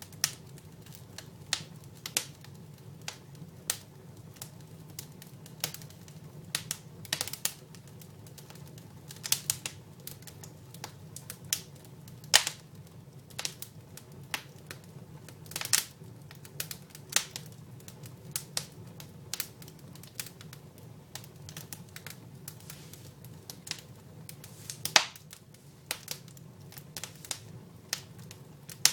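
Dry wood burning in a fireplace, crackling with irregular sharp pops and snaps, a few of them much louder than the rest.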